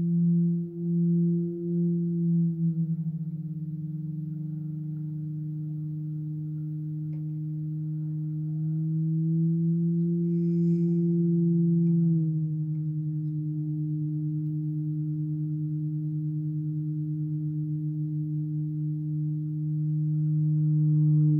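Halldorophone feedback drone: the D-string and a sympathetic string sustain on their own through the instrument's feedback loop at two close pitches that beat against each other, so the tone pulses in and out. The pulsing is deep for the first couple of seconds and becomes a finer, steady flutter after the pitch dips slightly. The pitch rises a little about nine seconds in and drops back about twelve seconds in as the strings are retuned by hand.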